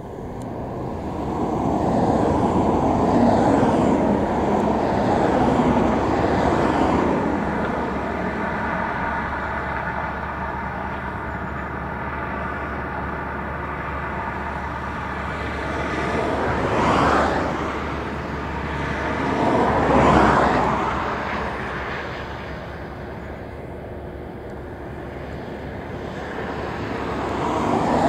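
Lockheed C-130 Hercules turboprop engines running on the ground during an engine test: a steady propeller drone and whine that swells louder several times, most strongly in the first few seconds, again about two-thirds of the way in, and near the end.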